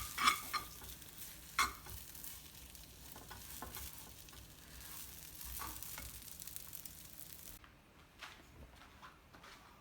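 Food sizzling in a pan while a utensil stirs it, with scattered clicks and scrapes against the pan. The sizzle cuts off suddenly about three quarters of the way through, leaving a few faint clicks.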